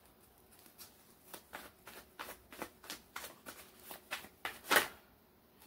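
Tarot deck being shuffled by hand before a card is drawn: a string of soft, irregular card clicks and flicks, the loudest one just before the end.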